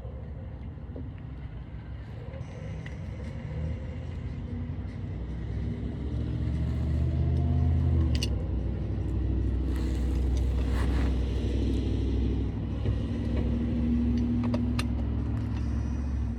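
A motor vehicle's engine running, growing louder over the first half with a rising pitch, then holding steady.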